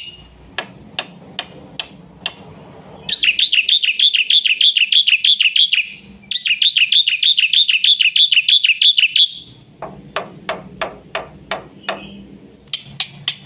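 Black-winged myna (jalak putih) singing loudly: two long runs of fast, repeated warbling notes, each lasting about three seconds. Before and after the runs come spaced series of sharp clicks.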